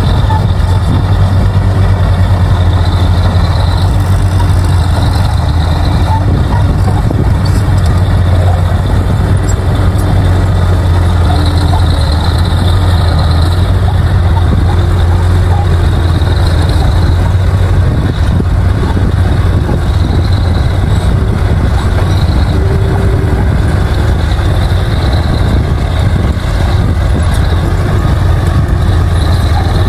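Bulldozer's diesel engine running steadily with a loud, constant low drone.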